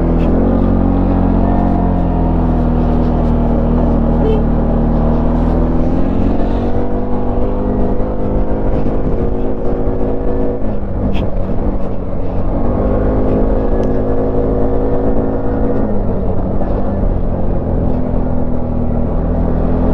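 CFMOTO ATV engine running while riding, its note rising and falling several times with the throttle.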